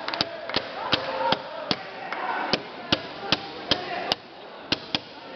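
A series of sharp slaps, about two or three a second in a fairly even rhythm, over faint voices.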